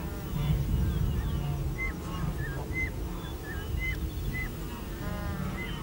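A herd of wildebeest grunting and calling over one another, with a steady low rumble underneath and short chirps repeating higher up.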